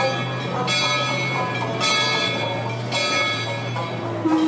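Steamboat's bell struck three times, about once a second, each stroke ringing on, as the departure signal. The boat's steam whistle starts to blow just before the end.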